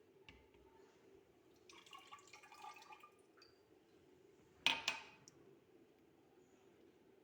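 Thick lemon concentrate poured from a glass into a container, lasting about a second, followed about two seconds later by a single sharp clink of glass.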